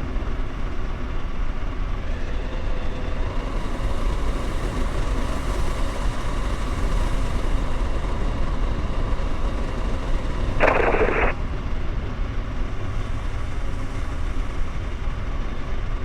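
Tecnam light aircraft's propeller engine running steadily at low power, with wind noise, heard from a camera on the wing as the plane rolls out after landing. A short burst of hiss comes about ten and a half seconds in.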